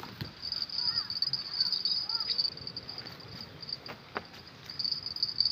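Insects trilling in a high, steady drone that swells and fades, loudest just before the end. A few short chirps and a single click sound beneath it.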